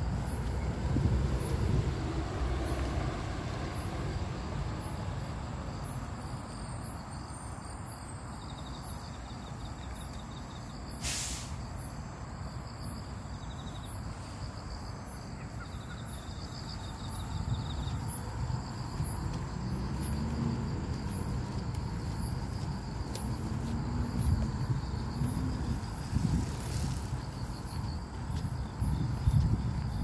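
Outdoor night ambience: insects chirping and trilling steadily at a high pitch over a low, steady rumble.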